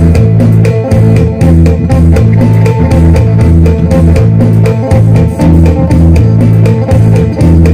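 Electric guitar played in Isan phin style: a quick picked melody over low notes that pulse in a steady rhythm.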